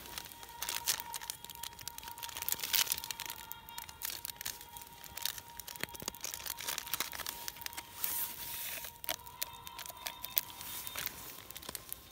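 Quiet background music with many irregular sharp crackling and crinkling clicks over it.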